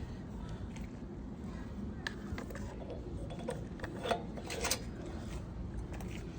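Light metallic clicks and clinks of small engine parts being handled and fitted on a push lawn mower, with a few sharper clinks about two seconds in and again around four to five seconds in, over a steady low rumble.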